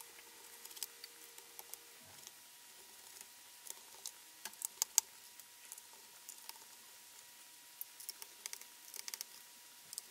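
Faint, scattered small clicks and ticks of a tiny Phillips screwdriver working the bottom-case screws out of an aluminium unibody MacBook Pro, with a bunch of clicks about halfway through and another near the end.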